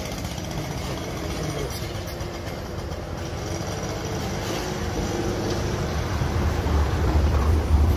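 Street traffic noise with a motor vehicle's engine running close by, its low rumble growing louder toward the end.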